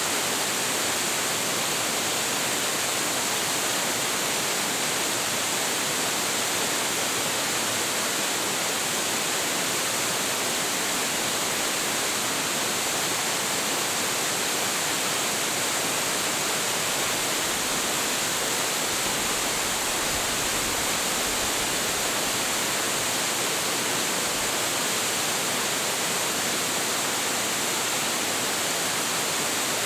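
Large waterfall crashing into its plunge pool: a steady, dense rush of falling water with no breaks or changes.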